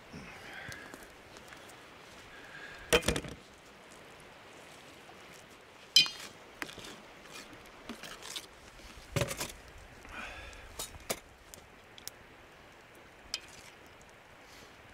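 Metal spoon and pot clinking against a stainless steel camp plate while instant oatmeal is mixed and stirred. Several sharp clinks come a few seconds apart, with lighter scraping between them.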